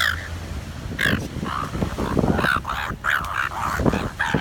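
Seagulls squabbling, giving a rapid series of short calls, about two a second.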